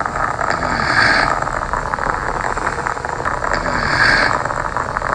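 A person snoring, with two louder snores about three seconds apart over a steady breathy rasp.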